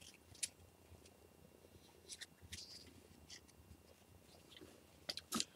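Faint, scattered rustling and scratching of a paper towel wiping excess glue off a model rocket's body tube and fins, with a few brief louder scrapes near the end.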